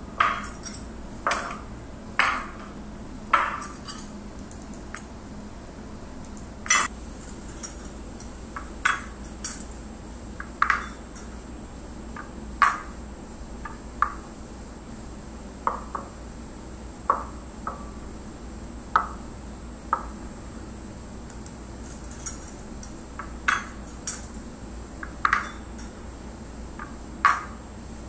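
Table being set: cutlery laid down, then plates and cups set down one at a time. Sharp clinks come every second or two at an irregular pace, each ringing briefly.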